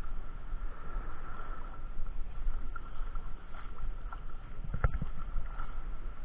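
Gusty low rumble of wind and water buffeting the microphone of a camera held at the sea surface, with one sharp knock about five seconds in.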